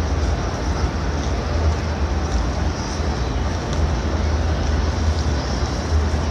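Steady low rumble of open-air ambience picked up by a moving handheld microphone, with a faint background murmur of people.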